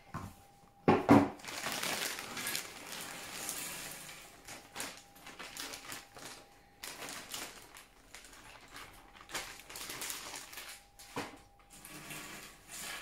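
Small cardboard jigsaw puzzle pieces handled and sifted, rattling and clicking against each other and the box with some rustling, in irregular bursts. A sharp knock about a second in is the loudest sound, with a dense run of clatter over the next few seconds and scattered clicks after.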